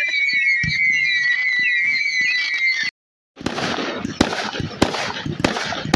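Aerial fireworks: a whistling shell gives one long, high whistle that slides slightly lower and cuts off about three seconds in. After a brief gap, dense crackling follows, with sharp bangs about every half second as shells burst.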